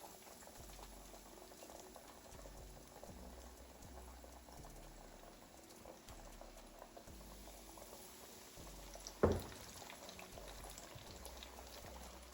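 Fish frying in hot grease: a steady crackling sizzle. One sharp knock sounds about nine seconds in.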